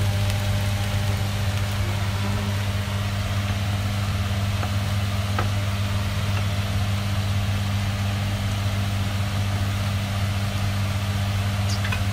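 Steady low electric hum, as from a kitchen fan motor, with an even hiss over it while a gas burner heats an empty cast-iron sizzling plate; no sizzling.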